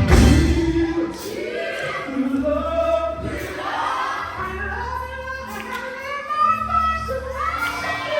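Live gospel music: voices singing together, choir-style, over long sustained bass notes.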